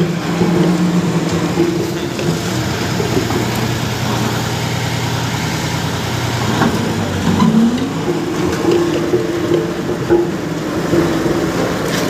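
Road roller's engine running steadily, its pitch rising briefly about seven seconds in.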